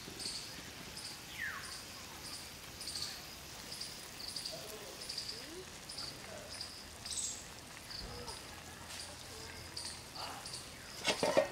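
Outdoor background of short high chirps repeating about twice a second, with one falling whistled call about a second and a half in, and a brief sharp clatter near the end.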